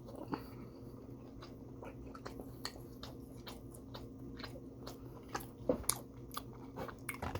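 Close-up biting and chewing of a crispy fried chicken strip: irregular crunches and mouth clicks, a few louder ones near the end, over a steady low hum.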